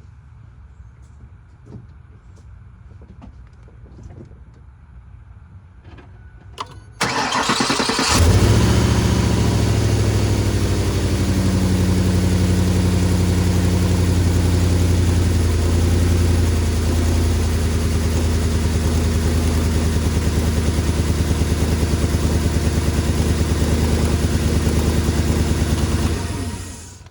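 Ford 4.6 L V8 cranked by the starter, catching after about a second, then running at idle for some eighteen seconds before it is switched off near the end. It is running with a misfire, one the owner calls pretty damn bad.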